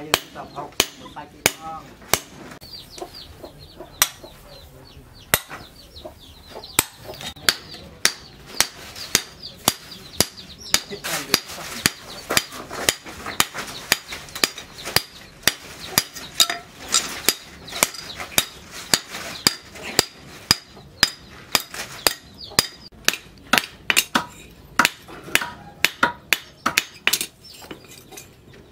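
Hand hammer striking a red-hot steel axe head on a steel block anvil: sharp metallic blows, a few at first, then a steady run of about two a second as the double-bladed head is drawn out.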